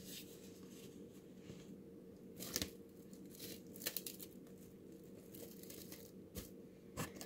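Plastic cling wrap crinkling and rustling as it is pulled and folded around raw chicken pieces, in faint short crackles, loudest a little after two seconds in and around four seconds in.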